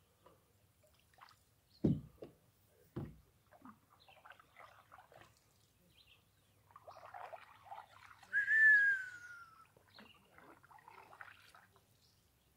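Two dull knocks of a paddle against a canoe hull, about a second apart. Later comes one whistle-like call, a second and a half long, that falls in pitch.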